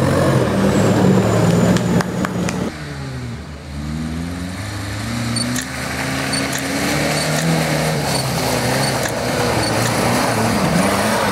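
Suzuki Samurai 4x4 engine working hard as the vehicle drives through deep mud. After a cut about three seconds in, another Samurai's engine comes along a dirt track, its pitch dipping and then climbing as it accelerates toward the listener.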